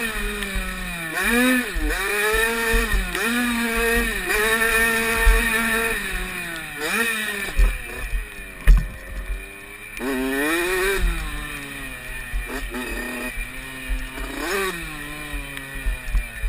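Motocross dirt bike engine heard from a camera on the bike, revving up and dropping back again and again with throttle and gear changes as it rides the track. Low thumps and knocks from wind and bumps hit the microphone.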